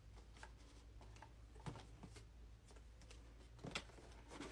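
Near silence with a few faint, scattered clicks and taps: a mascara box with a puzzle lock on its front being handled and worked open.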